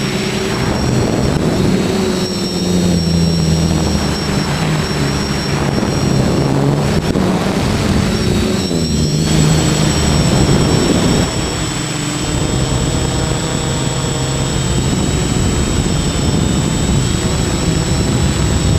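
Hexacopter's electric motors and propellers whining, with several pitches drifting up and down as the throttle changes. Wind buffets the microphone, and the motor note drops a little about eleven seconds in.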